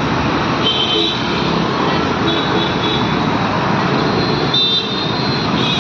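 City road traffic noise: a steady wash of engines and tyres, with faint high-pitched tones coming and going several times.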